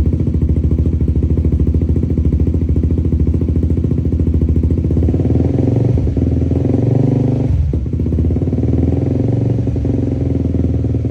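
Motorcycle engine running through an SC Project exhaust for a sound check, a steady pulsing exhaust note. About five seconds in the note gets fuller and deeper, with a brief dip just before eight seconds.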